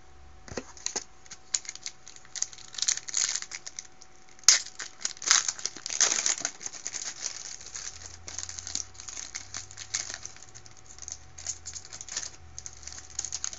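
Foil trading-card pack wrapper crinkling and tearing open in the hands, an irregular run of crackles and clicks with one sharp snap about four and a half seconds in.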